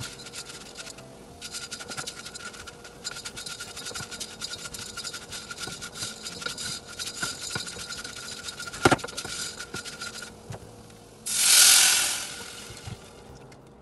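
Wooden spoon scraping and stirring broken instant noodles toasting in a hot saucepan, with a fine crackle. About eleven seconds in, water poured into the hot pan hisses loudly and dies away.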